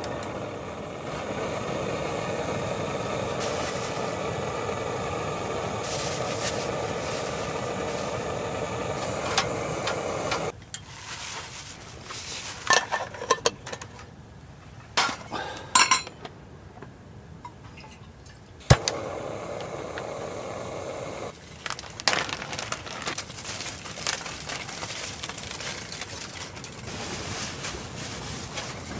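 A steady rushing sound for about ten seconds, then several light clinks of tableware and one sharp knock, followed by quieter handling noises.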